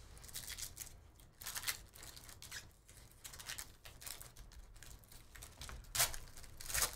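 Foil wrapper of a football trading-card pack crinkling and tearing as it is ripped open by hand, with two louder rips near the end.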